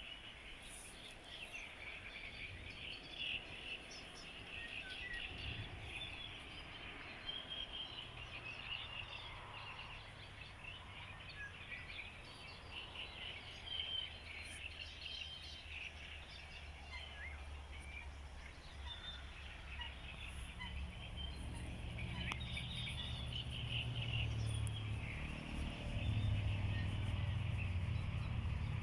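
Outdoor birdsong: many birds chirping and calling together. A low rumble grows louder over the last third.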